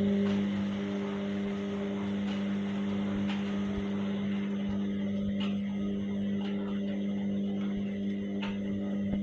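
Washing machine running with a steady electric hum, with faint light ticks about once a second.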